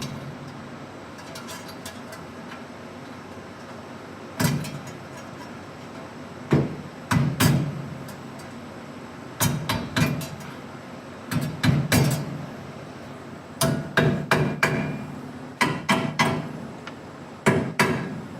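Hammer blows on steel front-brake parts during a drum-to-disc conversion, coming in short runs of a few strikes every couple of seconds, each blow ringing briefly.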